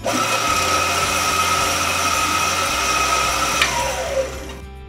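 Bandsaw motor starting abruptly when its contactor is pushed in by hand, because the solenoid is not pulling it in, then running steadily with a whine. About three and a half seconds in there is a sharp click, and the motor winds down with a falling whine.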